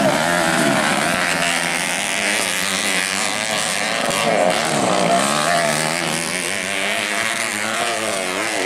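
Several racing dirt-bike engines revving hard, their pitches rising and falling over one another as the bikes accelerate and race through the track.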